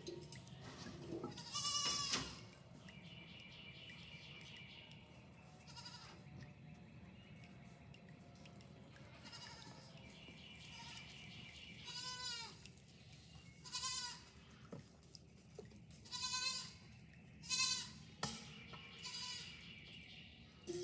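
Goats bleating, several high-pitched calls in turn, most of them bunched in the second half.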